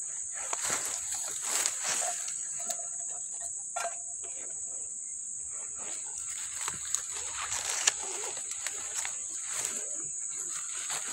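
Rustling and crinkling as a round pop-up dome tent in its nylon bag is picked up and handled among dry grass, in uneven scrapes and brushes. A steady high insect drone runs underneath.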